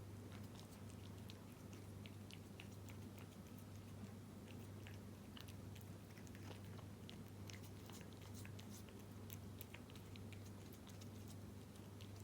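A cat chewing wet food in jelly: faint, irregular wet clicks and smacks of chewing. A steady low hum runs underneath.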